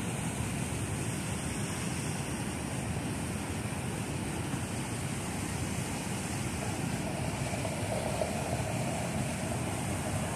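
Steady rushing noise, muffled by the phone lying against clothing.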